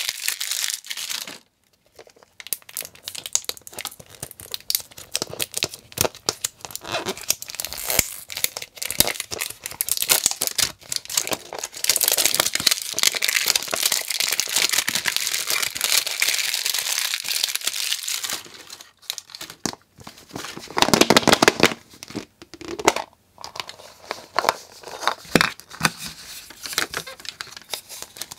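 Printed plastic wrapper crinkling and tearing as it is peeled off a hard plastic capsule ball, a dense, crackly rustle. Toward the end come louder handling noises and separate clicks of the hard plastic capsule and toy.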